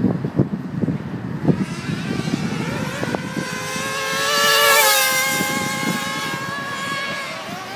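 Radio-controlled cars racing past, among them a Traxxas Jato nitro truck. Their small engines give a high-pitched whine that builds to its loudest about five seconds in, drops in pitch as they go by, then fades.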